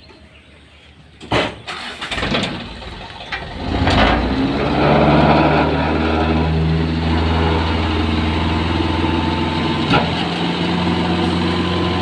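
Diesel tipper truck engine starting after a sharp knock, catching about two seconds in and settling into a steady loud run by about four seconds. It keeps running as the hydraulic hoist raises the dump body.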